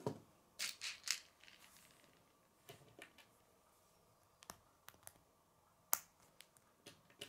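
Plastic K'nex pieces clicking as they are handled and fitted together: a quick cluster of clicks about a second in, then scattered single sharp clicks, the loudest about six seconds in.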